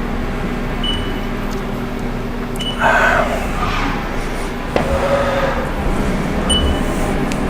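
CNC milling machine running a touch-probe cycle to find the part's centre: a steady machine hum with a few short high beeps and a brief rush of noise about three seconds in.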